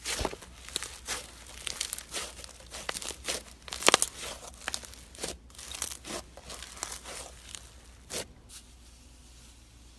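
White textured slime being squeezed and stretched by hand, giving off a dense run of crisp crackles and pops that thins out after about eight seconds.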